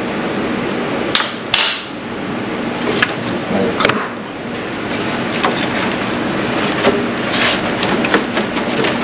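Scattered sharp knocks and clanks of hand tools on metal, a few seconds apart, over a steady background noise.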